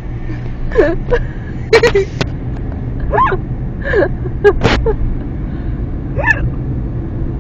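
A man hiccuping repeatedly: about six short, sharp vocal hiccups at irregular gaps, several with a quick rise in pitch, over a steady low hum.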